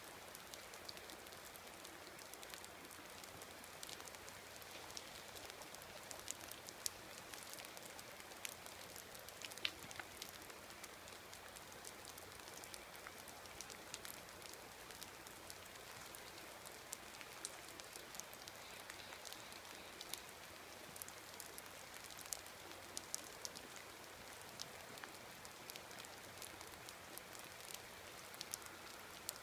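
Light rain falling: a faint, steady hiss dotted with many sharp ticks of drops striking nearby.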